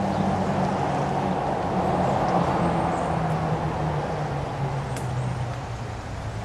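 A motor vehicle engine running steadily, its low hum slowly falling in pitch and easing off a little in the last couple of seconds.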